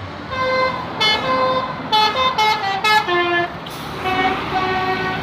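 Bus telolet basuri musical horn playing a tune, a run of held and quick notes that change pitch, with a short break a little past the middle before the tune goes on.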